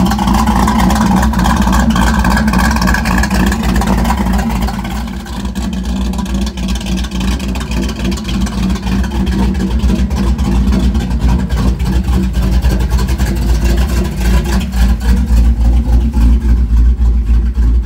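Engine of a 1970s Dodge pickup truck running at idle, a steady low exhaust rumble from its side-exit exhaust.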